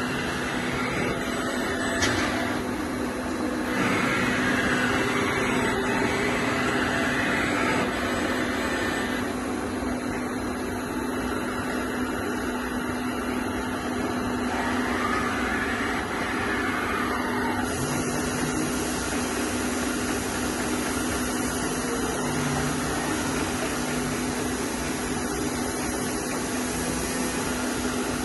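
Nexturn LX-20B Swiss-type CNC lathe running with a steady machine hum. There is a single click about two seconds in, and a few rising-and-falling whines come and go.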